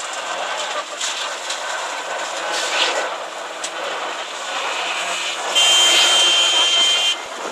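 Construction-site machinery running during a concrete pour: a steady mechanical din from the concrete boom pump and truck mixers. Near the end a louder, steady high-pitched whine sounds for about a second and a half, then stops.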